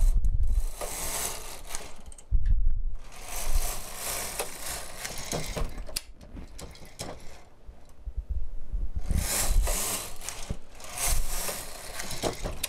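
Carriage of a single-bed domestic knitting machine pushed across the needle bed to knit rows: a long mechanical clattering slide on each pass, four passes with short pauses between them and a quieter stretch with a few clicks midway.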